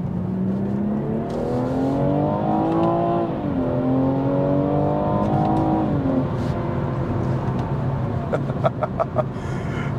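BMW M240i's turbocharged 3.0-litre straight-six under hard acceleration, heard from inside the cabin. The revs climb for about three seconds, drop at an upshift of the eight-speed ZF automatic, climb again, then ease off about six seconds in.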